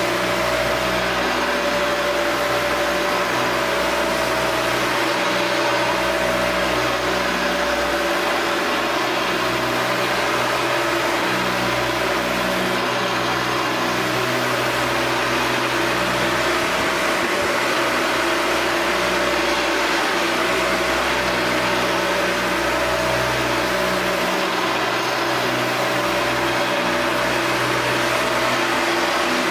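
U-Sand four-disc floor sander running steadily as its 80-grit discs sand a wood floor, with the steady hum of its dust-extraction vacuum.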